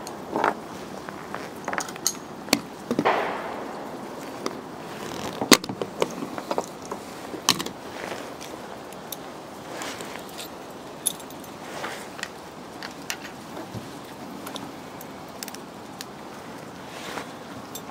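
Metal AR-15 magazines and shooting gear being handled on a wooden bench: irregular clicks, clinks and knocks of metal on metal and wood.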